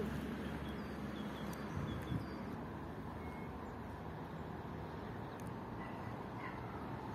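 Newag Impuls electric multiple unit approaching from a distance: a steady low noise, with a faint tone emerging near the end as it draws closer. A few small bird chirps sound over it in the first half.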